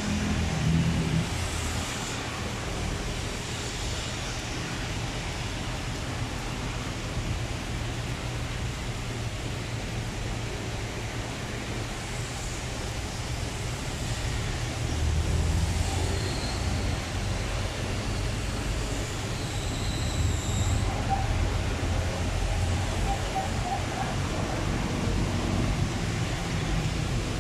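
Steady rain falling, an even hiss, over the low rumble of traffic on a wet road, with vehicles passing louder about halfway through and again near the end.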